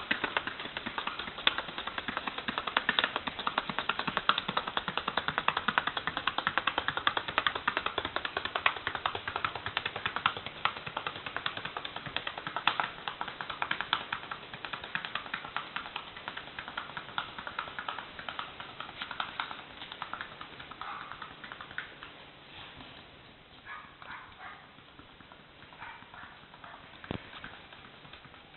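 Paso Fino horse moving in its fast, even four-beat gait: a rapid, steady tapping of hoofbeats that thins out and fades after about twenty seconds.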